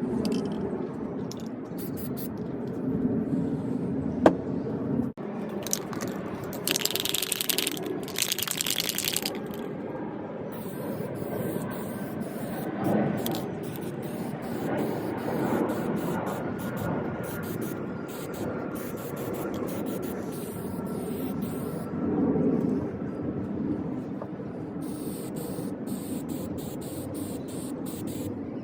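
Aerosol spray can of grey hammered-finish paint hissing in short bursts, a pair about seven seconds in and a longer one near the end, over steady handling noise.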